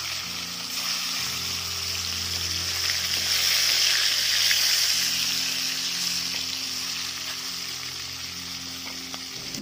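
Pieces of eel sizzling as they fry in hot oil in an aluminium wok, being turned with a metal spatula; the sizzle swells to its loudest about halfway through.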